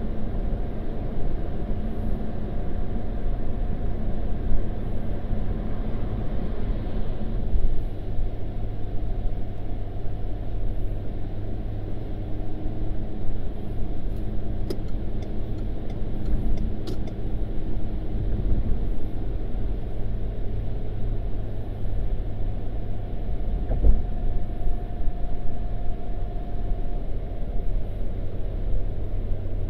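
Steady low rumble of engine and tyre noise inside a moving car's cabin, with a few faint ticks about halfway through.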